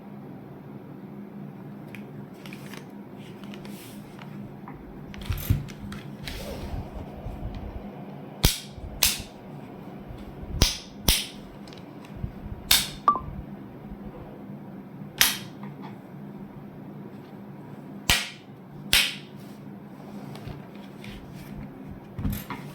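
Sharp clicks and snaps from handling a mechanical keyboard and its parts, about a dozen, often in pairs half a second apart, over a steady low hum.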